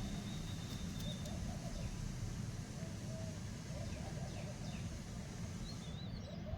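Faint bird calls, a few short high chirps and some low wavering notes, over a steady low rumble.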